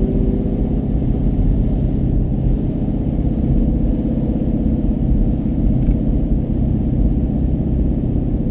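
Shelby GT350's 5.2-litre flat-plane-crank V8 running at a steady engine speed, heard from inside the cabin.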